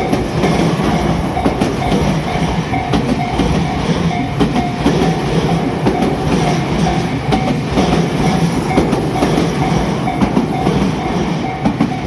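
Tobu 50000-series electric commuter train passing close by at a level crossing, its wheels clacking over the rail joints. Over it the crossing's warning bell keeps ringing a steady repeated tone.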